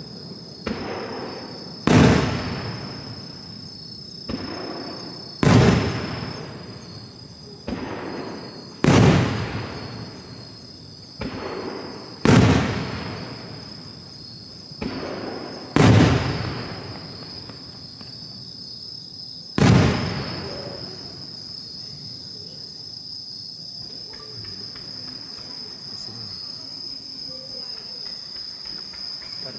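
Fireworks shells bursting overhead: six loud booms about every three and a half seconds, each echoing away and each with a softer bang about a second before it. After the last boom, about twenty seconds in, only a steady high insect trill is left.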